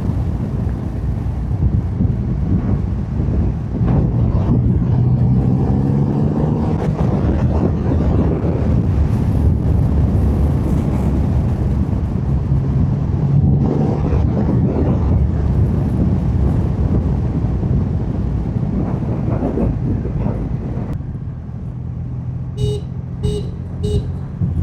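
Triumph Rocket 3 R Storm's 2.5-litre inline three-cylinder engine with stock exhaust, pulling hard with its pitch climbing through the gears, then settling to a quieter, steady low idle near the end. There the motorcycle's horn gives three short toots, used as an audio sync mark.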